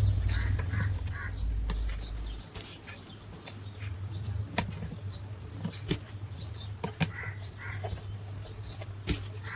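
Electric fan motor humming, loud at first and fading over the first couple of seconds, then holding as a steady low hum. Short chirps and a few sharp clicks sound over it.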